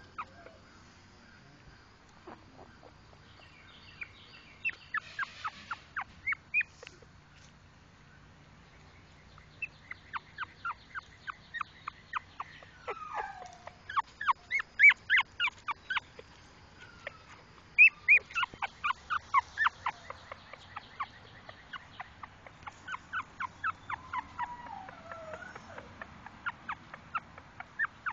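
Puppies squeaking: runs of short, high-pitched squeaks at about four to five a second, with a few falling whines mixed in.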